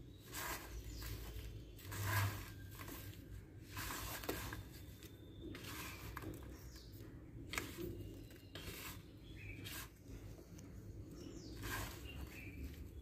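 Faint rustling and scraping as a hand moves and presses semolina-coated brinjal slices on a plate, in short irregular strokes about every second, over a low steady hum.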